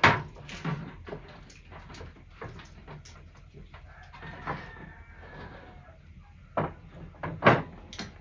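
Wooden serving board and tableware knocking on a wooden table as food is set out and shifted: a handful of sharp knocks, the loudest right at the start and a cluster of several near the end.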